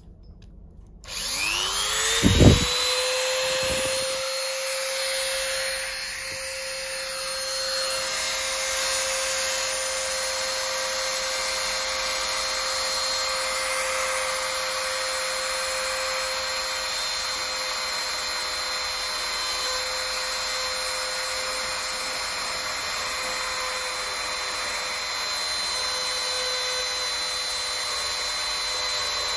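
A handheld rotary tool fitted with a needle bit switches on about a second in, its whine rising quickly to a steady high pitch, with a brief thump just after. It then runs steadily as the bit cuts away the edge of the speaker recess in a helmet's stiff foam liner piece.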